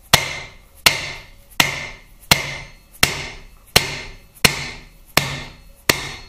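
Nylon dead-blow hammer tapping the end of a Harley Twin Cam transmission's main drive gear, driving it out through its bearing in the case. Nine evenly spaced knocks, about one every 0.7 seconds, each ringing briefly.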